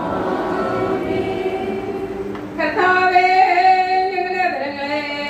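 Church congregation singing a liturgical response together, slow, with long held notes. The singing grows clearer and steadier about two and a half seconds in.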